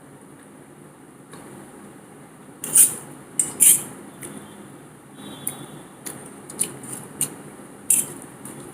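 A spoon clinking and scraping against a bowl while eating noodles: a handful of short, sharp clicks, the loudest pair about three seconds in.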